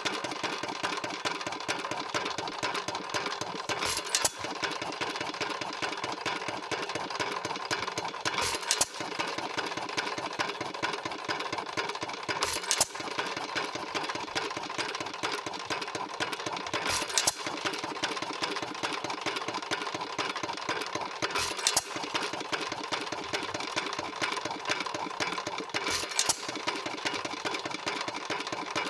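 1 1/2 HP Worthington single-cylinder hit-and-miss gasoline engine running. Between firings it coasts with a rapid mechanical clatter, and it fires with a sharp bang about every four seconds, six times here: the governor letting it fire only when speed drops.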